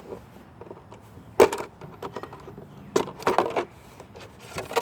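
A plastic drink carton handled and turned over, giving a few sharp knocks and crackles: one about a second and a half in and a cluster around three seconds in.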